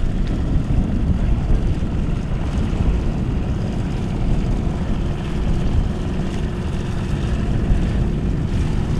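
ICON A5 amphibious plane's Rotax four-cylinder engine and pusher propeller running steadily as it taxis on the water, a continuous drone.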